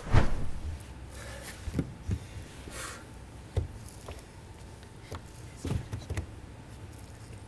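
A few scattered soft knocks and thumps, like objects being handled, the loudest right at the start and smaller ones now and then after.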